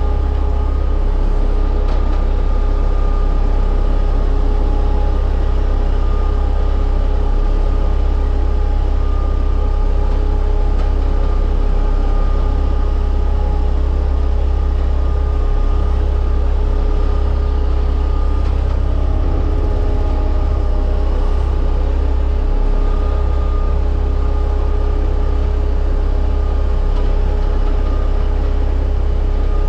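Diesel engine of a small ride-on compactor roller running steadily as the machine travels, a loud low drone with a steady whine above it.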